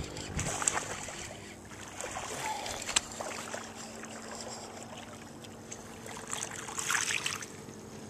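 Irregular bursts of splashing and rustling as a hooked bass is fought and brought in to the bank, over the steady drone of a distant boat motor.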